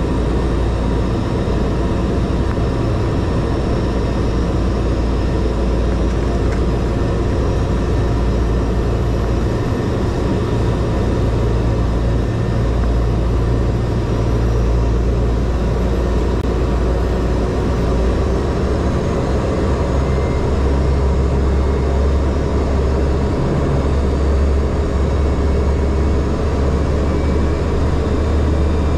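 Cessna 208 Grand Caravan's Pratt & Whitney PT6A turboprop engine and propeller droning steadily while taxiing, heard from inside the cabin. The low hum shifts in pitch about two-thirds of the way through.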